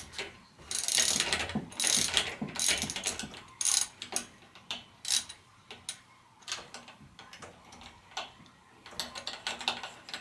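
Socket-wrench ratchet clicking in quick runs as a long hex socket on an extension backs out the 5 mm hex bolt at the bottom of a suspension fork leg; the bolt has already broken free and turns easily. The clicks come thick for the first few seconds, then sparser.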